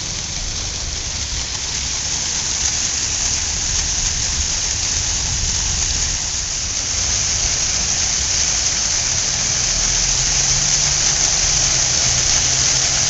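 Artificial waterfall: water cascading over concrete rocks into a small pond, a steady hiss of falling water that slowly grows louder.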